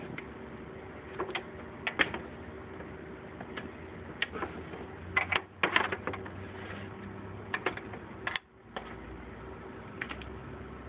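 Scattered short clicks and knocks as two HTC EVO smartphones are handled on a tray and a finger taps one screen, over a steady low hum.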